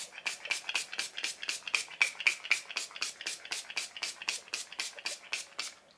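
Finger-pump bottle of makeup setting spray being pumped rapidly, about two dozen quick spritzes at roughly four a second, each a short hiss, stopping near the end. It comes out in forceful squirts rather than a fine mist.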